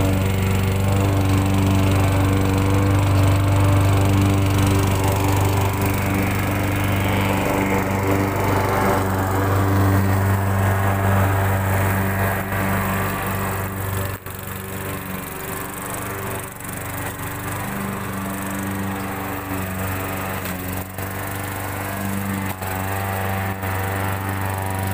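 Gasoline lawn mower engine running steadily under mowing load, loudest in the first half, fading somewhat about halfway through and coming up again near the end as it moves away and back, with a few sharp clicks in the second half.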